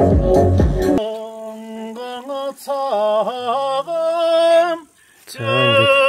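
Background music with a steady beat cuts off about a second in. A single voice then sings unaccompanied: long held notes with vibrato and ornamented turns, a short break near the end, then the singing starts again.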